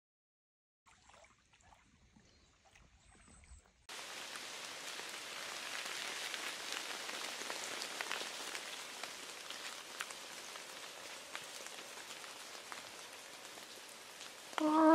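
Near silence, then about four seconds in a steady fine patter and rustle in forest leaves sets in, scattered with tiny ticks. Just before the end, loud music comes in on a held note.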